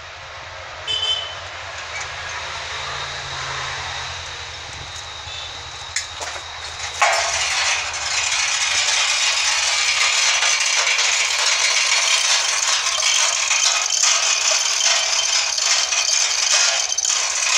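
Low engine hum with a few metal clicks, then about seven seconds in a loud, continuous rattling of heavy steel lifting chains as they are worked to hoist a log.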